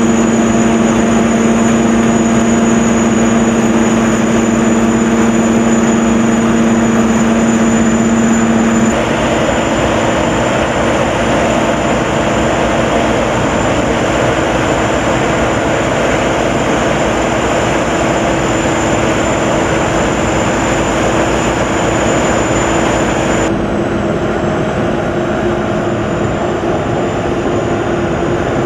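Corn combine harvester running steadily in the field, a loud, even engine and machinery drone with a steady hum. The sound shifts abruptly twice, about nine seconds in and again near the end.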